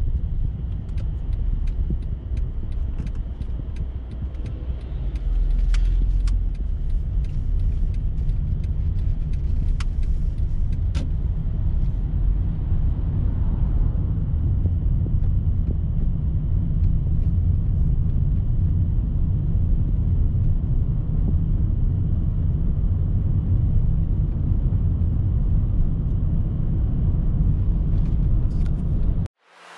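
Car interior road noise while driving: a steady low rumble of engine and tyres heard from inside the cabin, with scattered faint clicks in the first dozen seconds. It cuts off suddenly just before the end.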